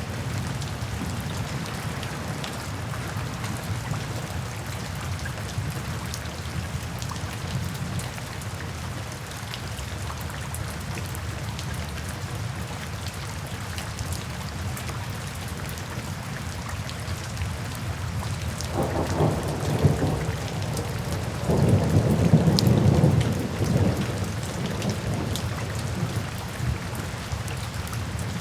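Steady rain falling, with a rumble of thunder rising about two-thirds of the way in and peaking a few seconds later before fading back into the rain.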